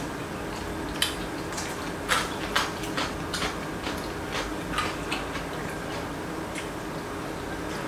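Chopsticks and tableware clicking against bowls and the stew pot during a meal, a dozen or so light, irregular clicks over a steady low background hum.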